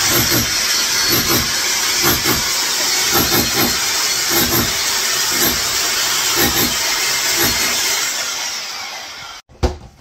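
A loud power tool running hard with a harsh, steady hiss and a low pulse about once a second. It winds down near the end and stops.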